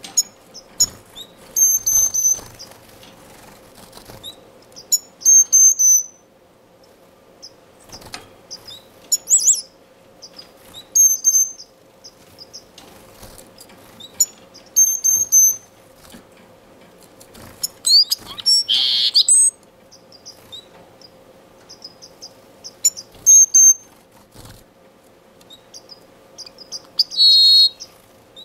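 Blue-capped cordon-bleu singing: short, high, thin whistled phrases repeated every few seconds. A louder buzzy note comes about two-thirds of the way through, and a brief call near the end.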